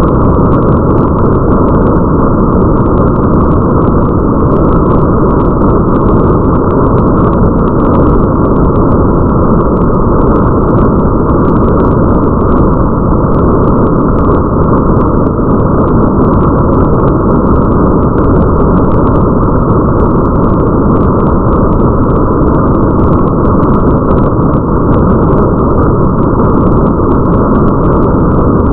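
Rain ambience track: a steady, dull rushing of rain with a deep rumble under it and faint ticks of drops on top, unchanging throughout.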